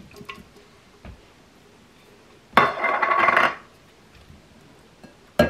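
Canned chicken being emptied from an opened metal can into a glass mixing bowl: a scraping rattle lasting about a second near the middle, then a quick run of sharp taps starting near the end.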